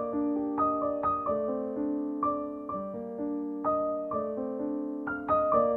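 Background piano music: a slow melody of struck notes that each ring and fade, over held lower notes.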